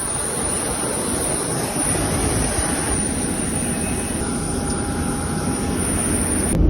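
Jet airliner engine and airflow noise heard from inside the cabin: a steady rush with a thin high whine, changing abruptly just before the end.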